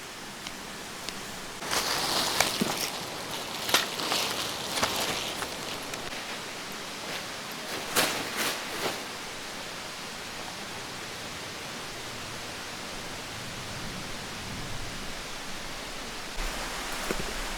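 Steady rushing of a mountain stream, with rustling and a few light knocks in the first half.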